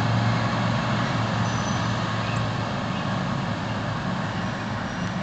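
Lawn mower engines running steadily, with a constant low drone.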